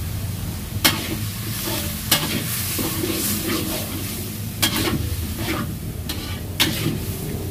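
A spatula stirring and scraping a thick yellow spiced sauce in a two-handled wok over a low sizzle, with about five sharp knocks of the spatula against the pan.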